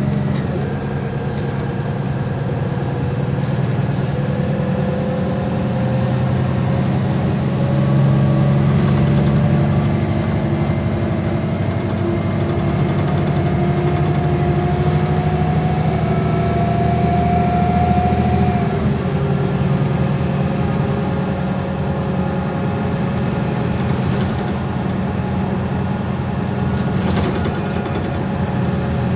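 MAN Lion's City bus running along the road, heard from inside the passenger cabin: a steady engine hum with a whine that rises slowly in pitch for most of the time, then drops suddenly about two-thirds of the way through.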